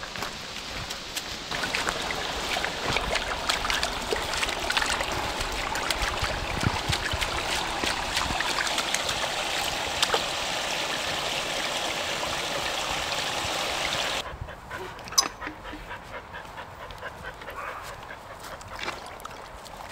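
A small stream running and splashing over rocks, with scattered footstep clicks and scuffs. The water cuts off suddenly about fourteen seconds in, leaving quieter footsteps and rustling with a sharp click soon after.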